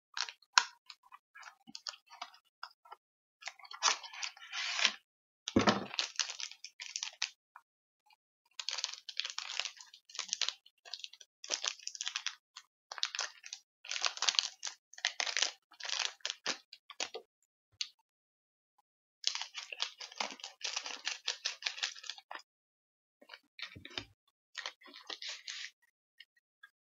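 Crinkling of a shiny plastic snack wrapper being handled and torn open, in irregular crackly bursts with short pauses. A dull bump sounds about six seconds in.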